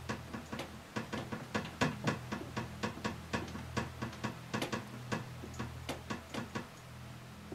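A quick, irregular run of sharp clicks and taps, several a second, over a low steady hum; the clicking stops shortly before the end.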